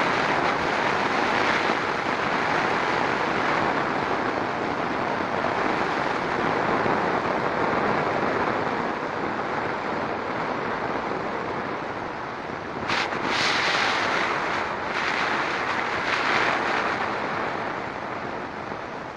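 Heavy tropical rain falling together with a flooded creek running high, a steady even rushing noise, with a brief louder rush about two-thirds of the way through.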